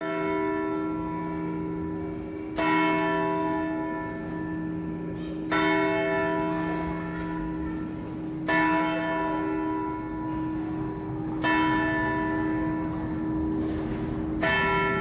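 The hour bell of the Zytglogge clock tower striking the hour, hammered by its gilded automaton figure: single strikes about every three seconds, five in all, each ringing on with a long, deep hum into the next.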